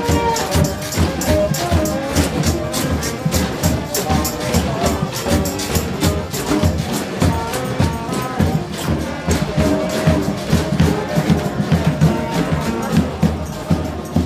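Loud music with a fast, steady drum beat and a melody line running over it.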